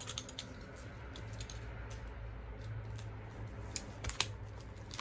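Fingertips and nails tapping and picking at the plastic shrink wrap on a boxed album: a scatter of light clicks, with two sharper ticks about four seconds in.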